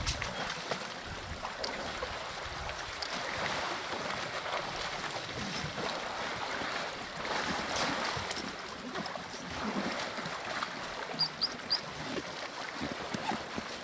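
African elephants wading and splashing in a waterhole: steady sloshing and splashing of water with small drips and splashes throughout.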